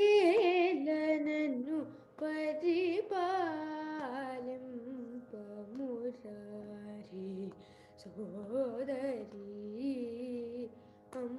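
Carnatic vocal singing by a female voice, the melody sliding and shaking through ornamented notes over the steady drone of a shruti box. The singing pauses briefly near the start and again about three-quarters of the way in, while the drone holds on underneath.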